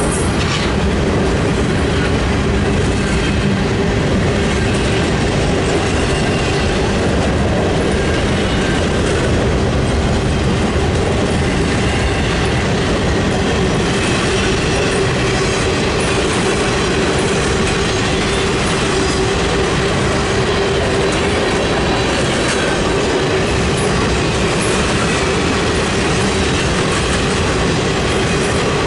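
CSX freight train's cars rolling past: double-stack container well cars, then boxcars, with the steady noise of steel wheels on rail and a steady tone running under it.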